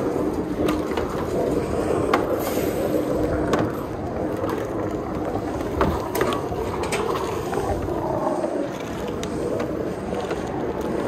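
Self-serve car wash foam brush scrubbing a car's body panels: a steady scrubbing of soapy bristles with foam flowing from the brush, broken by a few sharp clicks and knocks.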